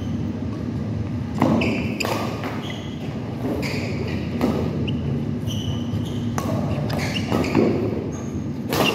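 Badminton rally: rackets striking the shuttlecock repeatedly, about once a second, with short squeaks of shoes on the court floor between the hits, in a large hall.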